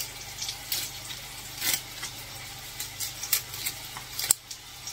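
Kitchen handling noises: short scraping, rustling strokes every half second or so, and one sharp click about four seconds in, over a steady low hum.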